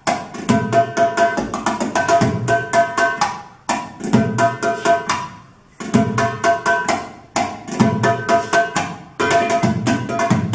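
Percussion music for bellydance: rapid, ringing hand-drum strokes played in phrases that stop briefly several times.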